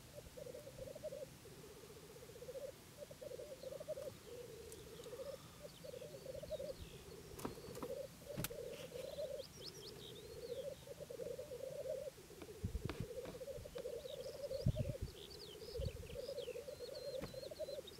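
Black grouse rookooing at a lek: a continuous bubbling, cooing song in repeated rising-and-falling phrases. Other birds call in short high chirps from about four seconds in, and a few low thumps come near the end.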